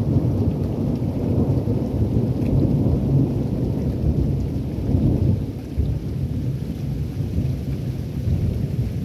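Rain in a thunderstorm: a steady, deep rumbling noise that dips briefly a little past halfway.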